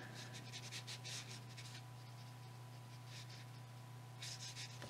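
Faint scratchy strokes of a water brush pen's bristles drawn lightly along the edge of a paper card: a run of short strokes in the first second and a couple more near the end.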